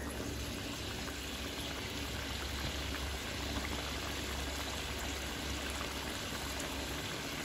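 Pork and bamboo-shoot coconut curry bubbling at a steady boil in a wok over a gas burner, with a constant low rush underneath.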